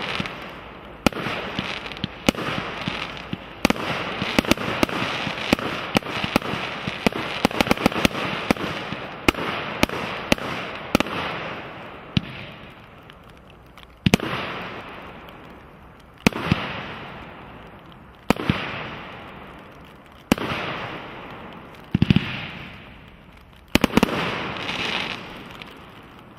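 Fireworks cake (63 shots, 25 and 45 mm) firing. For about the first twelve seconds it gives a dense run of bangs over a continuous crackle. After that come single bursts about every two seconds, each followed by a fading hiss of crackle.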